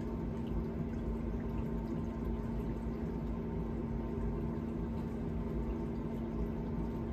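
Pellet smoker running, its fan giving a steady hum over a low, uneven rumble.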